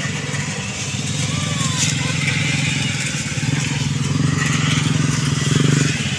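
Motorcycle engine idling steadily at an even low pitch.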